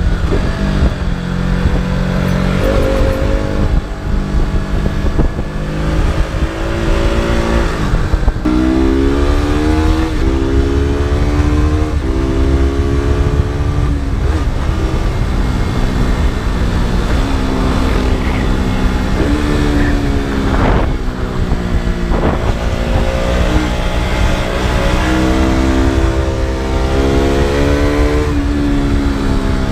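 KTM RC 200's single-cylinder four-stroke engine heard through its exhaust while riding, its pitch climbing and dropping again and again as the bike accelerates through the gears and rolls off.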